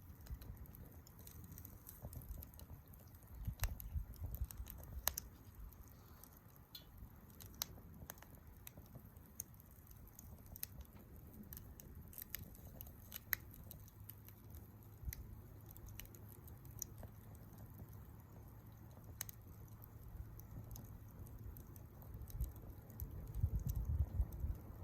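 Wood campfire crackling, with sharp irregular pops and snaps over a low rumble.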